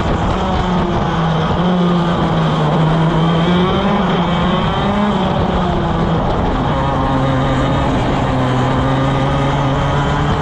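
Onboard sound of a 175cc two-stroke shifter kart engine at racing speed, with wind and tyre noise. The engine note falls as the kart brakes and slows for a corner about halfway through, then holds steady as it pulls out of the turn.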